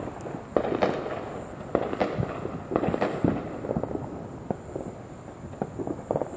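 Firecrackers going off in rapid, irregular strings of sharp pops and cracks. They are thickest in the first half and thin out to scattered single pops toward the end.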